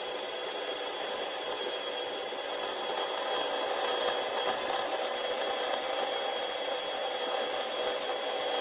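Electric drill running steadily as it bores a hole through an aluminium 3D printer bed plate, with a steady whine over a hiss of cutting. The sound swells a little about halfway through and drops right at the end.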